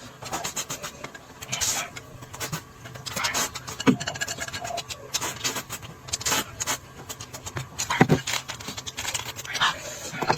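Close-miked eating noises: irregular chewing with clicks and scrapes.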